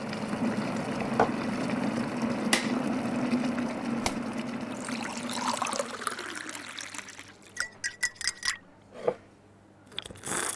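Designed sound effects for an animated logo sting. A rushing noise over a low steady hum is broken by a few sharp clicks, then fades into a quick run of ticks and a couple of short bursts near the end.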